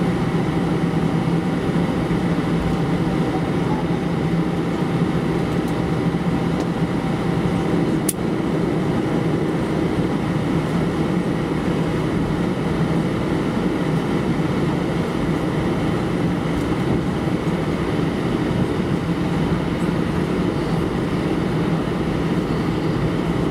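Airbus A319-112 cabin noise while taxiing after landing: its CFM56 engines running at idle, a steady low drone with rumble. A single sharp click about eight seconds in.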